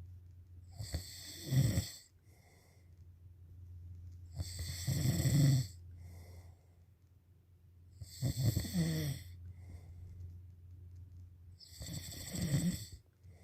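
Snoring: four loud snores about every three and a half seconds, each a rough rattling inhale, with a softer breath between them.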